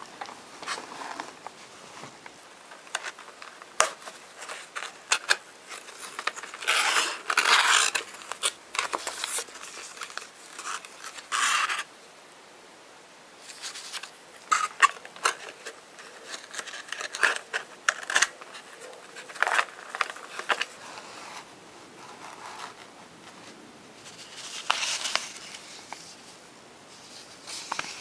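Cardboard toy packaging being handled and opened: irregular scraping, sliding and tapping of cardboard, with several louder bursts of paper and card rustling.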